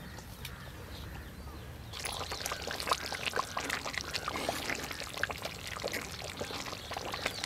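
Thick prawn curry made with coconut milk bubbling in a clay pot as it is stirred with a wooden spatula, near the end of cooking. Faint at first, it becomes a dense crackle of bubbling and stirring from about two seconds in.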